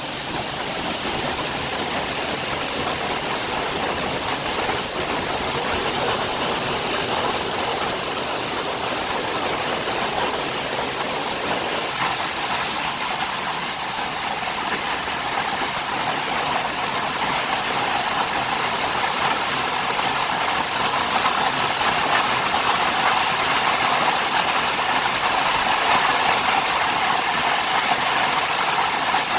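Heavy monsoon rain pouring down steadily, a dense even hiss with no breaks.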